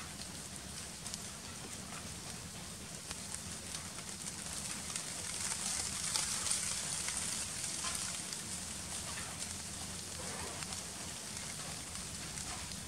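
Steady crackling, hissing forest ambience that swells about midway, with scattered faint rustles and ticks.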